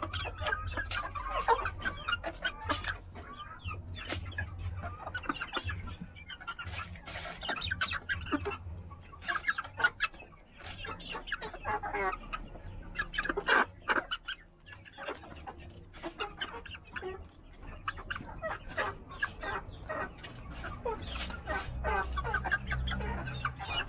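A small mixed flock of chickens clucking and calling as they feed, with many short sharp clicks among the calls.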